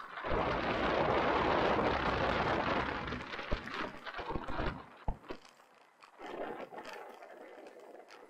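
Mountain bike descending a rough trail: wind buffeting the microphone and tyres rolling over the ground, loud for about the first three seconds, then quieter, with scattered knocks and rattles from the bike.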